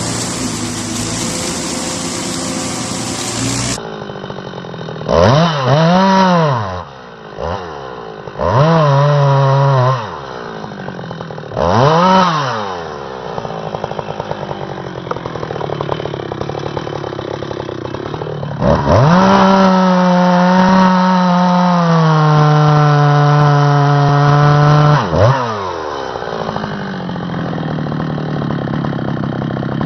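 Chainsaw blipped to high revs three times, its pitch rising and falling each time, then held at full throttle for about six seconds, the pitch dropping partway as it comes under load in the cut, and falling back to idle between runs. A steady engine hum opens before a cut to the saw.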